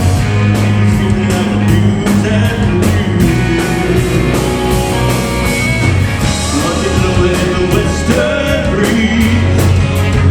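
Melodic rock band playing live: drums keep a steady beat under bass, guitars and keyboards, with a lead voice singing.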